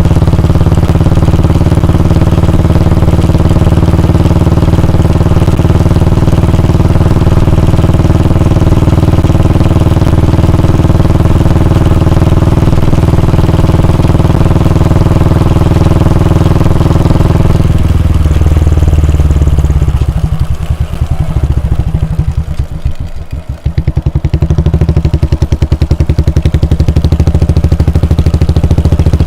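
Royal Enfield Bullet 350's single-cylinder engine and exhaust running steadily. A little over halfway through the engine note drops. For a few seconds it slows to a low idle with slow, separate exhaust thumps, then it picks up again.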